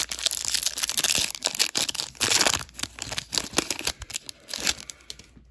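Plastic trading-card pack wrapper being torn open and crinkled, a dense run of irregular crinkles and sharp crackles that dies away near the end.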